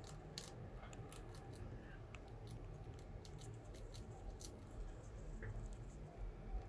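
Rat nibbling a cheese snack: faint, irregular little crunching clicks over a low steady rumble.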